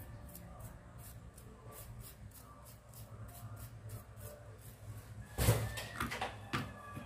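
Soft-bristle paintbrush sweeping silica sand off a dried rose in a plastic tub: faint, quick swishes, about four a second, that fade out. About five and a half seconds in come a few louder knocks and rattles of handling against the plastic tub.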